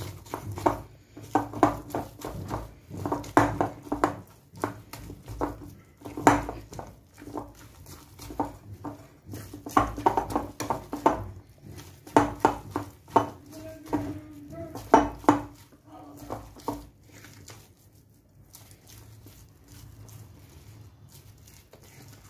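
A hand squishing and slapping a wet semolina dough in a glass bowl in quick, irregular strokes, with light knocks against the bowl. The strokes stop about three-quarters of the way through.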